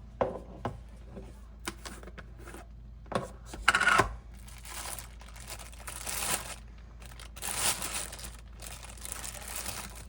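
Packaging being handled: intermittent rustling, crinkling and tearing with several light clicks, the loudest clatter about four seconds in.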